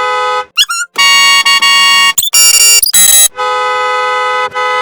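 A car horn held in one steady two-note blast, chopped and replayed as edited variations: cut off about half a second in by a brief warbling glide, then sounded louder and higher-pitched twice, and back at its original pitch from about three and a half seconds.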